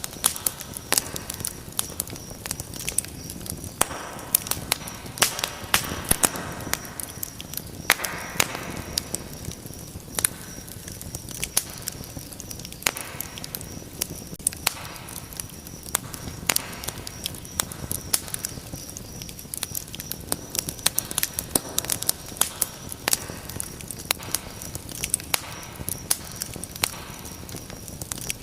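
Fire in a fireplace crackling, with irregular sharp pops and snaps coming several times a second over a soft hiss.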